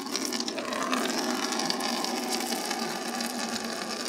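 Water pouring steadily into a container, filling it.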